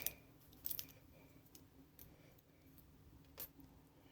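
A few faint, scattered clicks and light taps of small hard parts being handled, against near silence.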